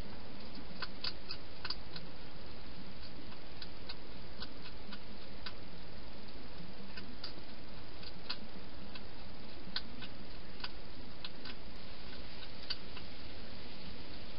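A wild hedgehog eating at its bowl, crunching food in irregular sharp clicks a few times a second over a steady hiss.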